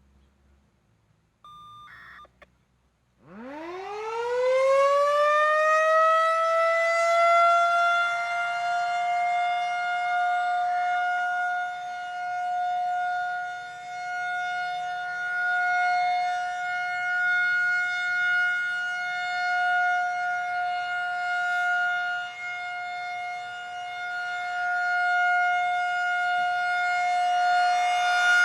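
Federal Signal 2001-130 rotating electromechanical warning siren winding up from silence about three seconds in. Its pitch rises quickly, then it holds one steady tone that swells and fades in loudness as the head rotates. This is the siren's routine monthly test.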